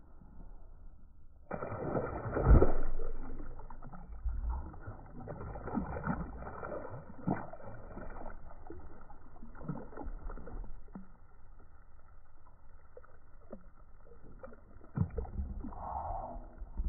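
Slowed-down, muffled audio with deep knocks and bumps; the loudest is a low thump about two and a half seconds in.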